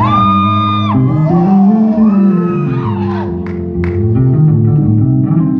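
Live jazz-funk band playing: an electric bass line moves up and down under held keyboard chords, with high gliding tones arching over the top, strongest in the first second.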